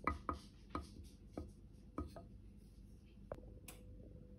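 Wooden spoon stirring thick crushed tomatoes in a slow-cooker crock, knocking lightly against the crock about eight times at irregular intervals.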